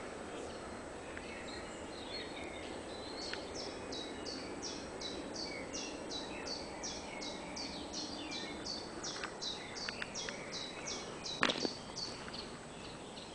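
A songbird singing a long run of evenly repeated high notes, about three a second, over a steady background hiss. A single sharp knock comes near the end.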